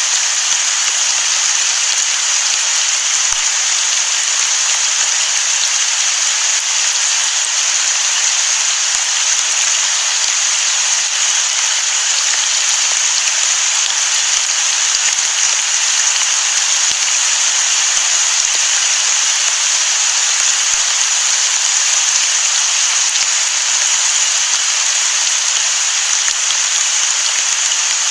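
Rain falling steadily on the sea: a loud, even hiss that neither rises nor falls, with no thunder.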